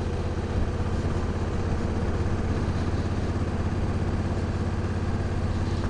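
Honda Africa Twin CRF1000L's parallel-twin engine running at low, steady revs as the motorcycle creeps along slowly, with no revving or change in pitch.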